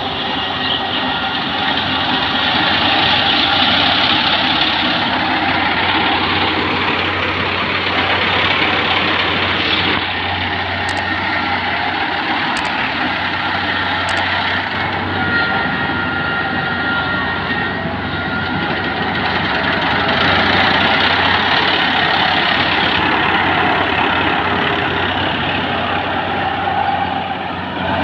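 Kubota PRO588I-G mini combine harvester running: a steady, dense mechanical noise over a low engine hum, swelling and easing slightly in level.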